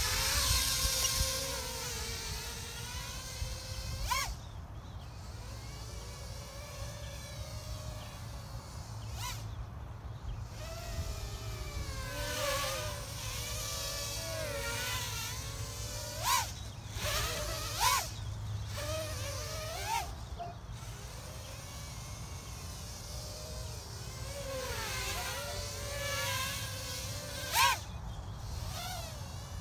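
Small acro FPV quadcopter with 1105 6000kv brushless motors on a 3S battery and GemFan 3025 three-inch props, whining as it flies, the pitch sliding up and down with the throttle. Three sharp punch-outs jump the whine high in the second half.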